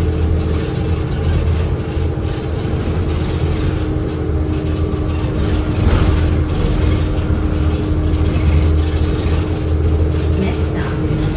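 2005 New Flyer C40LF transit bus driving along, heard from inside the cabin: its Cummins Westport C Gas Plus natural-gas engine and drivetrain give a steady low drone and hum over road noise, with a brief knock about halfway through.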